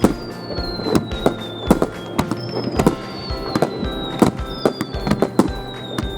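Fireworks display: aerial shells bursting in quick succession with sharp bangs about two a second. High whistles slide slowly down in pitch between the bangs.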